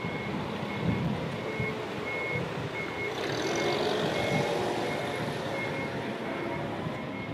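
Toyota 7FGU25 forklift reversing: its back-up alarm gives short, steady high-pitched beeps, about three every two seconds, over the running of its propane-fuelled engine. The engine grows louder as the forklift passes close by, about three to five seconds in.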